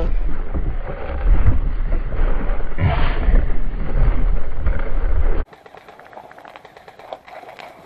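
Wind and handling noise buffeting a gun-mounted camera's microphone during a run across open ground: a loud low rumble that swells about three seconds in. Near the end it gives way abruptly to a much quieter bed of faint clicks and rustles.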